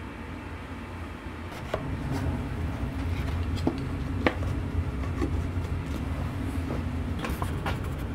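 A steady low rumble that gets louder about two seconds in, with scattered light clicks and knocks, typical of parts being handled during the frame's assembly.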